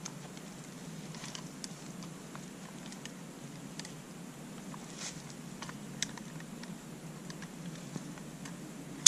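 Faint scattered clicks and taps of an SKS rifle and its sling being handled, with one sharp, loud click at the very end.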